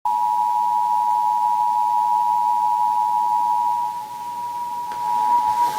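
Emergency Alert System attention signal: a steady two-tone alarm of 853 Hz and 960 Hz sounded together. It starts abruptly and drops in level about four seconds in.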